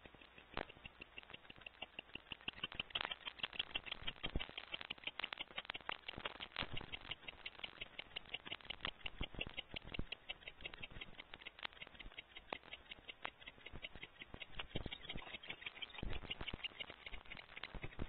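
A rapid, steady run of dry clicks and ticks, several a second, with louder single ticks now and then.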